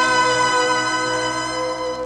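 Orchestral music from a 1960s Mandarin film soundtrack recording: violins and strings hold one long chord that slowly fades and ends near the end.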